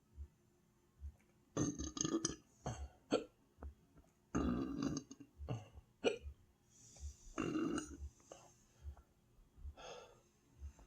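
A person belching repeatedly from an overfull stomach, with short sharp hiccups among the burps; two of the burps are drawn out for about a second.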